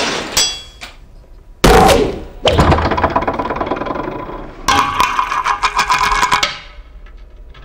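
Mechanical clatter: a sudden heavy knock about one and a half seconds in, then scraping and rattling, then a ringing whir with many fast clicks that stops abruptly near the end.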